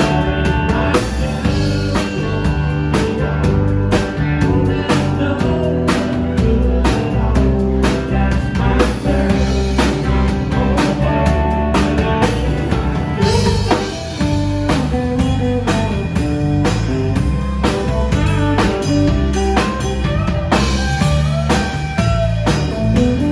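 Live country band playing with drum kit, bass, acoustic and electric guitars and fiddle, heard through the room's PA.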